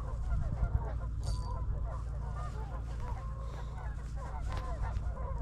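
A continuous chorus of many short, overlapping animal calls, with a steady low rumble underneath.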